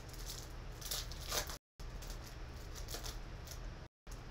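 Crinkling and rustling of a foil trading-card pack being handled and torn open by hand, loudest about a second in. The sound cuts out to silence twice, briefly.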